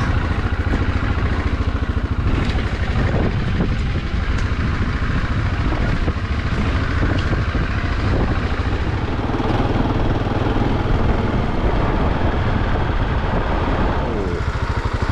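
Husqvarna 701 enduro motorcycle's single-cylinder engine running steadily as the bike is ridden along a dirt and gravel trail.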